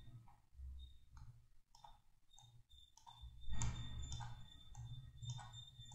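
Computer mouse clicking repeatedly, a series of short, sharp clicks, with one louder, longer noise about three and a half seconds in.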